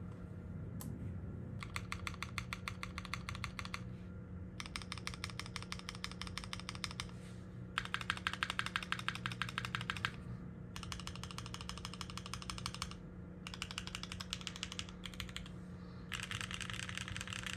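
Custom 60% mechanical keyboard with lubed Kailh x NovelKeys Cream linear switches on an FR4 plate, typed on quickly in runs of a few seconds with short pauses between them. A faint steady hum sits underneath.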